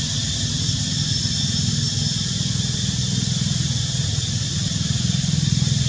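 Small engine running steadily with a fast, even throb, holding a constant speed as at idle, over a steady high-pitched hiss.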